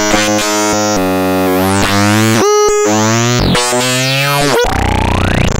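Small all-analog Make Noise Eurorack synthesizer voice played from a 0-Ctrl touch sequencer. It plays a run of buzzy pitched notes that change in pitch and tone every half second or so, then pitch glides sweep up and down in the second half.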